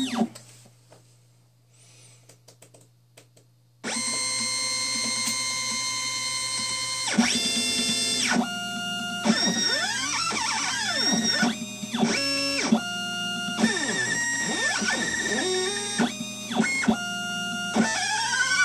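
CNC machine's stepper motors whining as they drive a soldering-iron head over the workpiece: a few faint clicks at first, then about four seconds in a loud steady whine that jumps to a new pitch every second or so, with rising and falling sweeps as the axes speed up and slow down.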